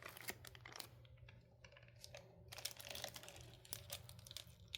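Faint, irregular sticky clicks and crackles of cherry-scented slime being squeezed and poured from its plastic bag.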